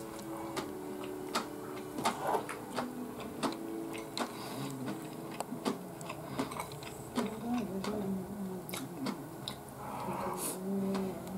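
A person chewing and eating close to the microphone: wet mouth clicks and smacks at an irregular pace. Faint low tones that shift in pitch run in the background.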